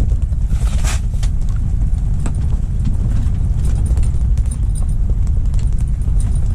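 Strong wind buffeting the microphone: a loud, steady low rumble, with scattered light clicks and ticks over it.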